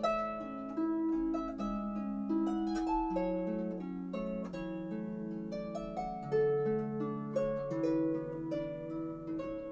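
Gentle background music: a melody of plucked-string notes over held lower notes, closing out the video.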